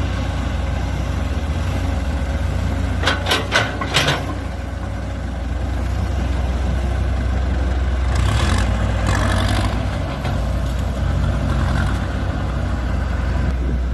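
Heavy machine's engine running steadily, with a few sharp metal clanks about three to four seconds in and a rougher, noisier stretch a little past the middle.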